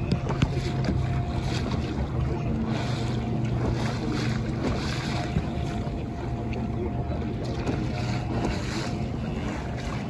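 Boat engine running steadily at a constant pitch, with water washing along the hull and wind buffeting the microphone.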